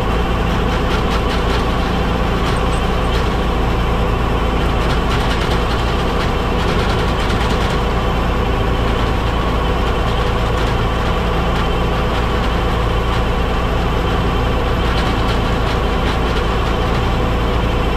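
1961 Massey Ferguson 35 tractor engine running steadily, driving a Rinieri hedge trimmer, with spells of crackling as the cutting head chops through hedge branches.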